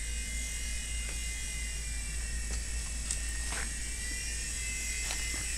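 i-Helicopter, a small iOS-controlled toy helicopter, in flight: its tiny electric rotor motors give a steady high-pitched whining buzz.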